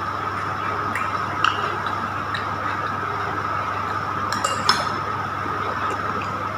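Metal spoon clinking against a glass bowl a few times, loudest about four and a half seconds in, over a steady background hum.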